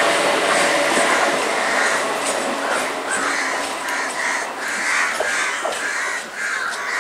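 Electric local train (EMU) running along the track, its steady rail noise fading, while from about two and a half seconds in crows caw repeatedly, about three calls a second.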